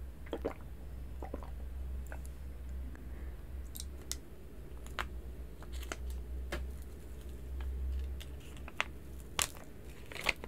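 A few swallows of milk from a glass jar, then the clear plastic film around a slice of cake being handled and peeled off. The film gives a run of sharp crinkles and crackles, loudest near the end, over a steady low hum.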